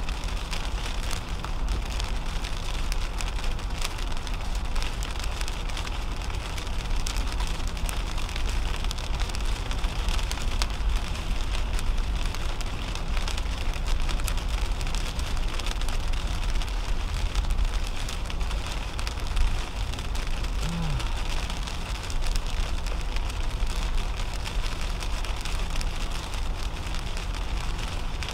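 Rain hitting the windshield and roof of a 2010 Toyota Camry, scattered drop ticks over the steady low rumble of its tyres on the wet highway, heard from inside the cabin.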